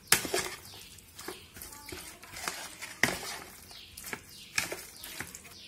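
Metal spoon stirring raw chicken pieces through a thick yogurt-and-spice marinade in a plastic bowl, with irregular clicks and scrapes as the spoon knocks against the bowl and the meat.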